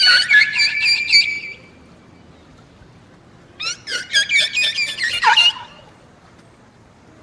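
Dinosaur sound effect: two bursts of rapid, high-pitched chirping squawks, the first at the start and the second about three and a half seconds in, each lasting about two seconds.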